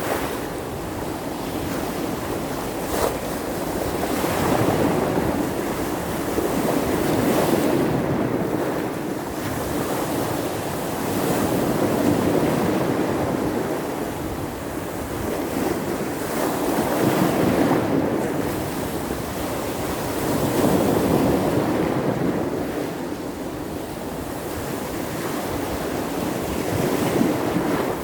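Surf breaking on the shore in a small storm, a continuous wash of waves that swells and ebbs every few seconds, with wind buffeting the microphone.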